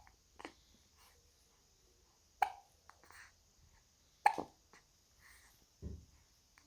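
A baby hiccuping: short, sharp hiccups at a steady spacing of roughly two seconds, four in all.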